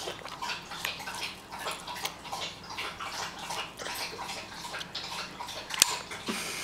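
A baby's wet mouth smacking and sucking on a popsicle: many small, irregular clicks, with a sharper click near the end.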